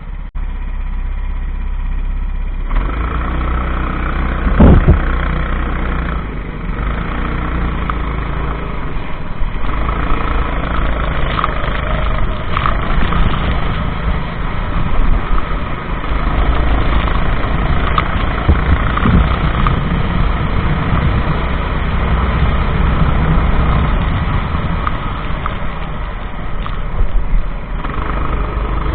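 Go-kart engine running continuously at race pace, with a single loud thump about five seconds in.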